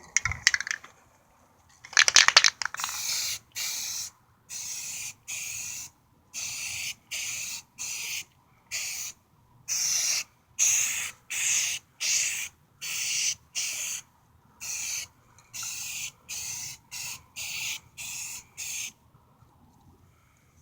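Aerosol can of self-etching primer: a brief rattle near the start, then a string of short hissing spray bursts, about two a second, as a brake caliper is sprayed in quick passes. The bursts stop about a second before the end.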